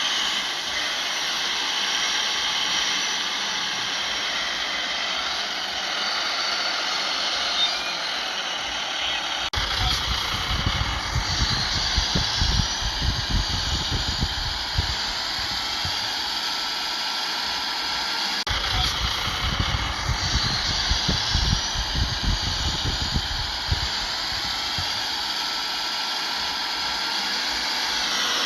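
Diesel engines of heavy earthmoving machinery running, with a few rising whines as the revs climb. Through the middle stretch there is heavy, uneven low rumbling.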